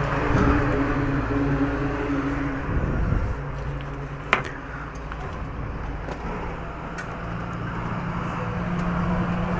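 A vehicle engine running steadily, with a single sharp click about four seconds in.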